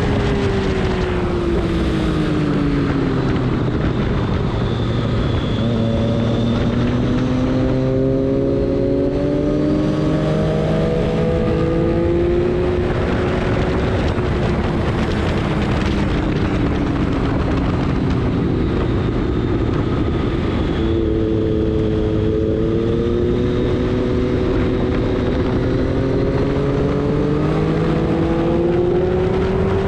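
Engine of a vehicle running hard around a race track, its pitch falling over the first few seconds, climbing for several seconds, falling again, then climbing toward the end, under a steady rush of noise.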